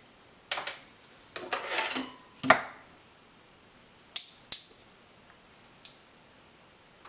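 Glass bottles and kitchen utensils being picked up and set down on a stone countertop: a short clatter, a louder knock about two and a half seconds in, then two sharp, ringing glass clinks a moment apart.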